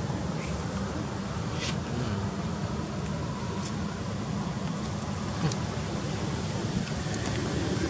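Steady low outdoor rumble, with a few faint ticks and a brief high chirp about half a second in.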